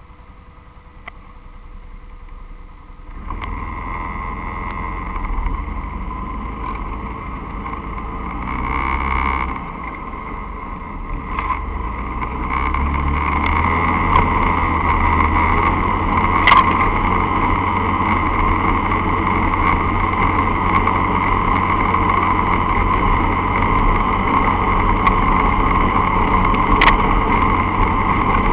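Enduro motorcycle engine running under way on a dirt track. It is quiet for the first three seconds, then gets louder, swells around eight to nine seconds in, and runs steadily louder through the second half. Two sharp knocks come partway through and near the end.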